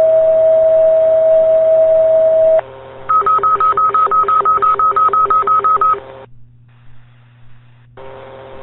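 Fire dispatch alert tones over a radio scanner, the tone-out that precedes a call for engines: a long steady tone that stops a couple of seconds in, then a rapid string of short beeps, about six a second, for about three seconds. The channel then goes briefly quiet before radio hiss returns near the end.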